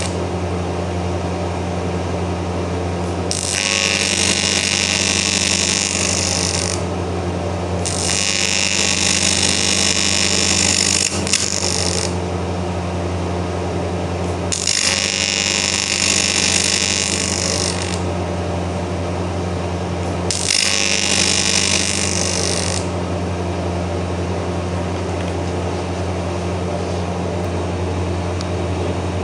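AC TIG welding arc on cast aluminium, buzzing in four bursts of a few seconds each that start and stop abruptly, over a steady low hum.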